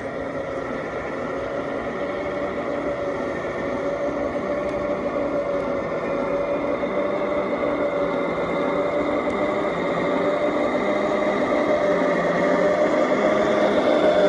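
Radio-controlled model road-train truck driving toward the microphone. Its drive gives a steady hum that rises slightly in pitch and grows louder as the truck comes closer.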